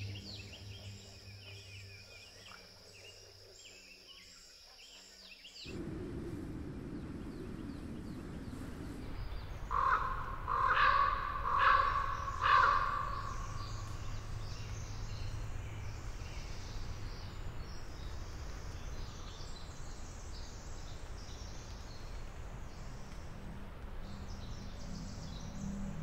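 Outdoor ambience with a steady soft hiss, and a crow cawing four times, about a second apart, about ten seconds in. Soft music with light bird chirps fades out in the first few seconds, and music comes back in near the end.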